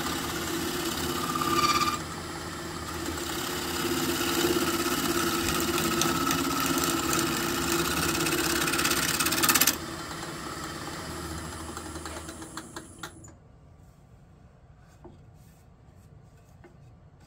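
Gouge cutting a spinning cherry burl blank on a wood lathe: a steady, noisy shearing of the cut over the hum of the lathe's motor. About ten seconds in the cut stops suddenly, the lathe runs on for a few more seconds, then it winds down and goes quiet.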